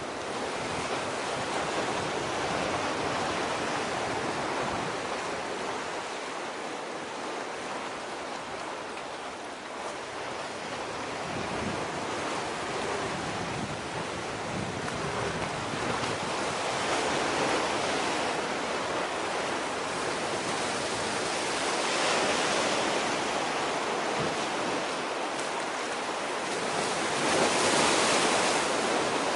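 Sea waves washing in on the shore, a steady rush that swells and eases every few seconds.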